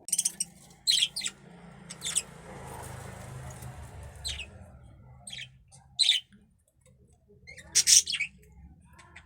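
Budgerigar giving short, high-pitched chirps and squawks, about eight scattered calls, the loudest pair near the end, over a faint low rumble of handling.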